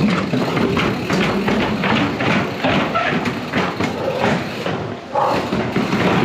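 Mountain bike ridden over rough alley ground, its frame and chain rattling in rapid, irregular clatters over a constant rushing noise.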